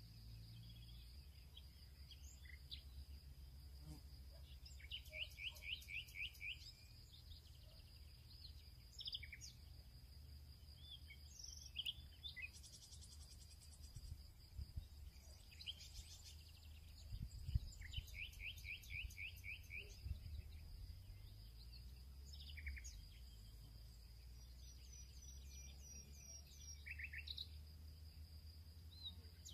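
Faint birdsong: scattered chirps and a few short rapid trills, over a steady high-pitched whine and a low hum.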